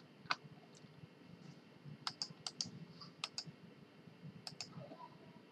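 Scattered clicks of a computer mouse and keyboard, about ten sharp clicks in all, most of them bunched between two and five seconds in.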